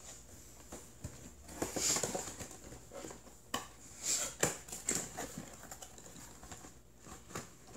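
A cardboard toy box being handled and its top flap pulled open: scattered scrapes, taps and rustles of cardboard, with a cluster of them about halfway through.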